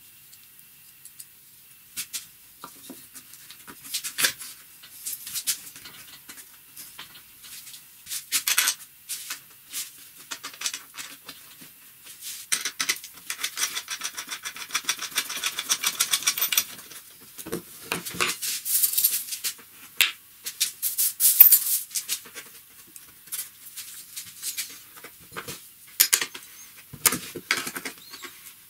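Hands handling wood blocks and metal hardware on a bench: scattered clicks, taps and knocks, with a few seconds of rapid scraping and rattling about halfway through and a couple of low thuds just after.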